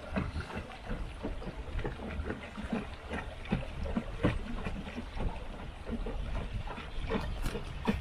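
Water slapping and gurgling irregularly against the hull of a wooden boat under way, over a steady low rumble.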